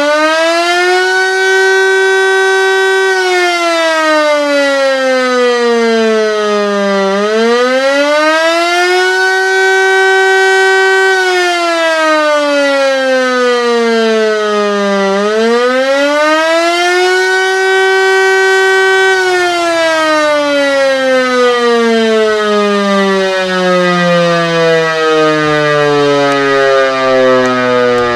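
Landert MSL-3 motor siren sounding the Austrian civil-defence 'Alarm' signal, a wail that rises in pitch, holds briefly, then falls, three times over about eight seconds each. After the last peak, about two-thirds of the way through, the siren winds down and its pitch keeps sinking to the end.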